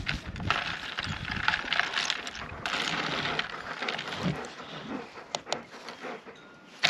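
A long spoon stirring iced coffee in a plastic tumbler: a steady swishing of ice and liquid, with a couple of sharp clinks about five seconds in. It fades away just before the end.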